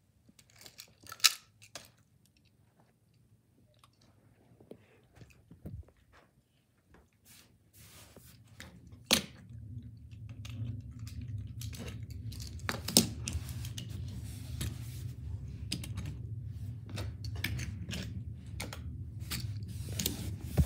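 Handling noise from a phone camera moved low over a rug and along a wooden floor: scattered clicks and rustles at first, then from about eight seconds in a steady low rumble with frequent clicks over it.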